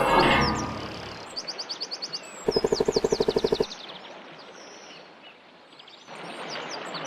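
Birds chirping in short, high, falling notes, with a rapid rattling trill of about a dozen pulses a second for just over a second, about two and a half seconds in.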